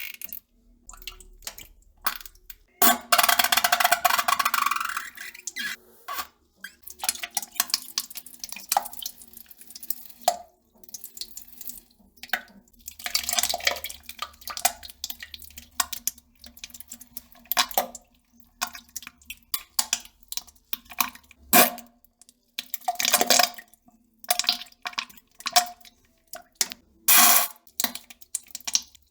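Wet spattering and plopping into toilet water as a person defecates. It comes as irregular spurts and splashes with short gaps between them, the longest spurts about three seconds in and again near the middle.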